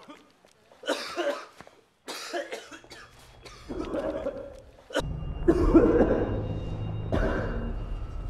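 A person coughing, several harsh coughs one after another; about five seconds in, a low, dark music drone comes in underneath the coughing.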